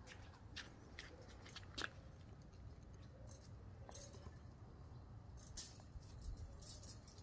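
Faint scratchy clicking and rustling as a French bulldog puppy bites and tugs at a rope toy tied to a wire playpen. There is a sharper click about two seconds in and a small cluster of them about three-quarters of the way through.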